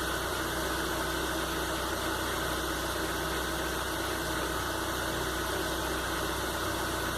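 Fiat Linea's 1.8 E.torQ four-cylinder engine idling steadily while it warms up, with its idle control freshly adjusted.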